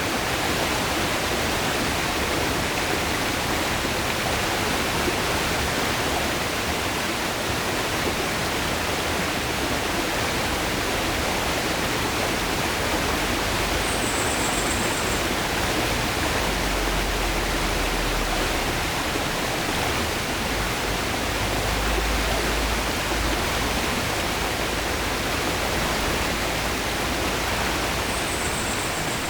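River water rushing steadily over rocks: a continuous, even rush of flowing water.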